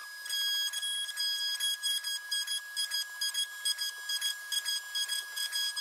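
Small DIY CNC router milling wood: the spindle and motors give a steady high-pitched whine, and the cutting noise pulses about three times a second as the bit works around the pocket.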